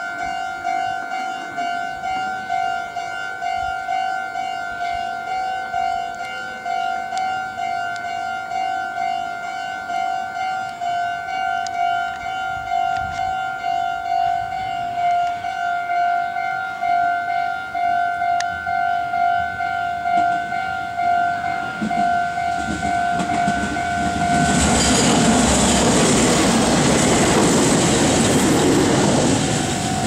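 Japanese level-crossing warning bell ringing in an even, repeating two-tone pulse. About 24 seconds in, a Meitetsu electric train runs past the crossing, its loud rushing noise drowning the bell for about five seconds until the bell is heard again near the end.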